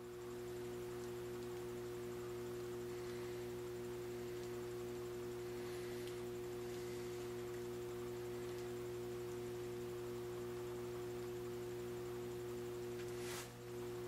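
Steady electrical hum of an electric furnace's heating elements running on mains power: a low buzz with a few steady overtones that swells in over the first half second as the second element comes on. Near the end it dips briefly with a faint click.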